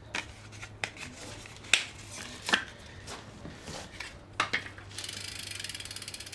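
Sharp, irregular clicks and snaps of packaging being pulled off a new BMX bike. About five seconds in, a fast, even ticking starts: the rear hub's ratchet clicking as a wheel spins freely.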